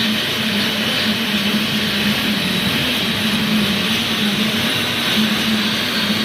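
Wire-making machinery running steadily: an even mechanical rush with a constant low hum.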